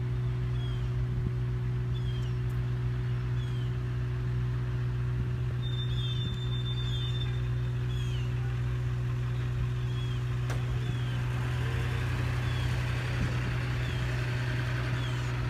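A steady low engine drone, unchanged throughout, with a bird repeating a short falling chirp about once a second.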